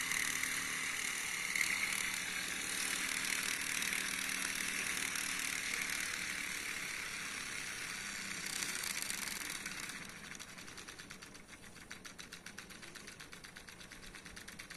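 Mini Ringbom-Stirling model engine running steadily at about 2,200 RPM. About ten seconds in, its speed control valve is closed down and the sound drops to a quieter, fast, even beat as the engine slows.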